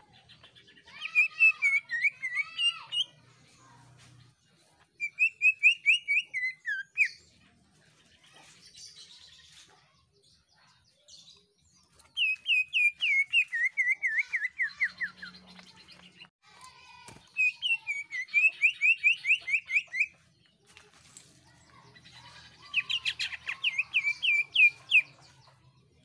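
Caged male green leafbird (cucak ijo) singing loud, shrill song bursts: five phrases of rapid, repeated downward-sweeping notes, each two to four seconds long, separated by short pauses.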